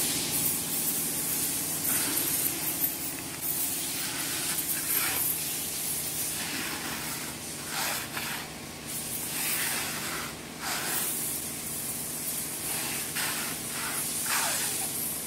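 Plastic stretch film being pulled off a hand roll and wrapped around a CNC router's gantry, a noisy rustle that comes in irregular pulls every few seconds. A steady low hum runs underneath.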